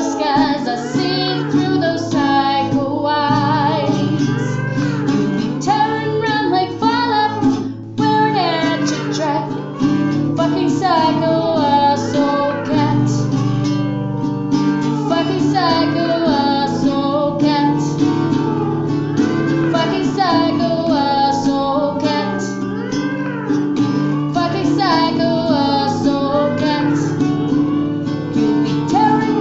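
A comic song: a high singing voice with guitar accompaniment, sung throughout.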